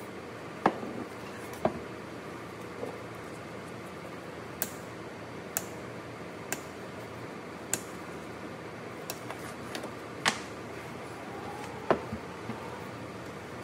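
Irregular sharp metallic clicks and taps, about a dozen, as pliers and gloved hands work the rusted fuel sending unit, over a steady background hiss.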